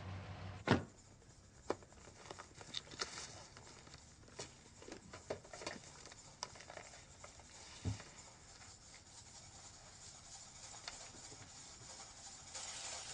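A handbag's metal clasp snaps shut with a sharp click about a second in. Scattered small clicks and rustles follow in a quiet room.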